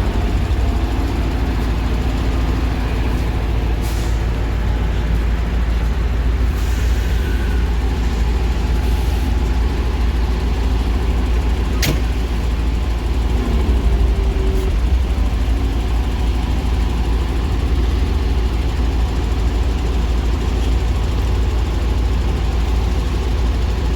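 Heavy truck engine running steadily under load, driving the hydraulics of a truck-mounted crane that is lifting a heavy load; a single sharp click about halfway through.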